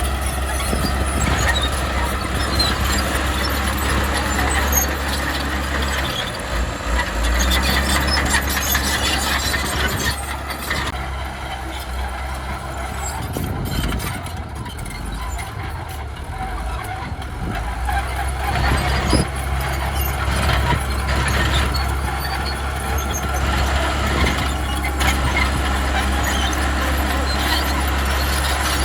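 Heavy earthmoving machinery at work: a diesel engine's steady low drone, with squeals and scattered clicks and clatter over it. The drone eases a little about halfway through, then picks up again.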